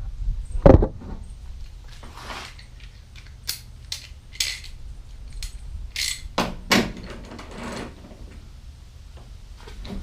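Irregular metallic clinks and rattles of hand tools being handled, with a sharp knock about a second in.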